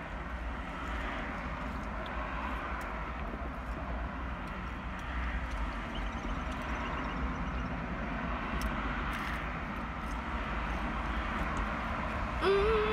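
Car engine idling, heard from inside the cabin: a steady low rumble with a hiss over it. Near the end a woman begins humming a held note.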